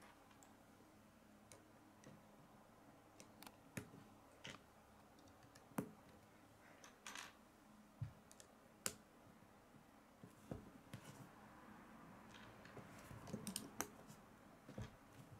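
Irregular, sharp clicks of plastic K'nex rods and connectors being snapped together and handled, with near silence between them and a denser run of clicks near the end.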